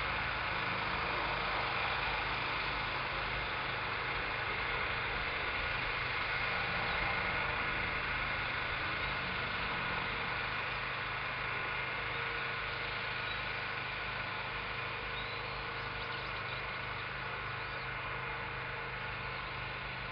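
Engine of a large chemical-spraying machine running steadily: a constant hum with hiss over it, growing slightly quieter in the second half.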